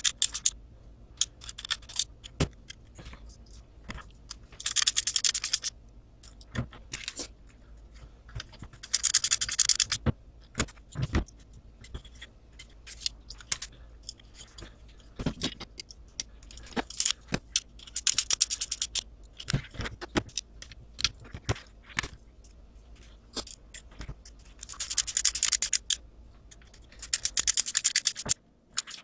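Hand screwdriver turning small screws into an RC truck's chassis: several short bursts of rapid fine clicking and scraping, with scattered clicks and knocks of small parts being handled between them.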